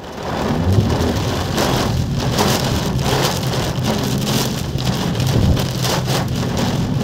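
Heavy rain pouring steadily in a downpour.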